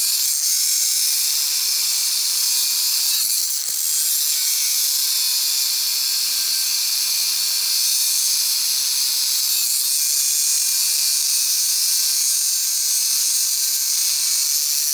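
Angle grinder with a thin cut-off wheel cutting through square steel tubing: a steady, high hiss, easing briefly about three and a half seconds in.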